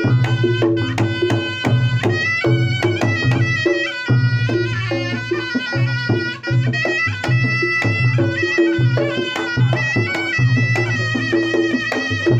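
A Reog Ponorogo gamelan ensemble playing. A slompret (double-reed shawm) carries a nasal, wavering melody over steady drum and gong strokes in a continuous, driving rhythm.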